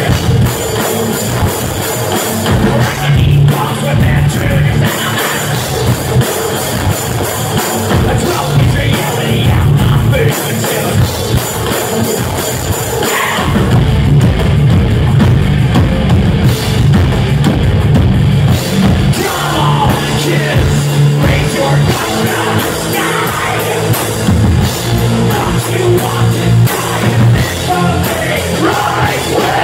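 Live rock band playing a song loud: electric guitars, bass and drum kit, with singing.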